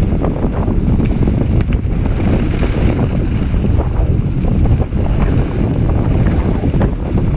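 Wind buffeting the action camera's microphone as a mountain bike rolls fast down a loose gravel trail, with tyre crunch and short rattles from the bike over small bumps.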